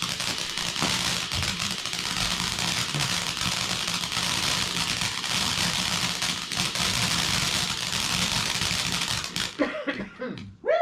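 A firework hissing and crackling steadily, stopping about nine and a half seconds in. Near the end a dog starts howling.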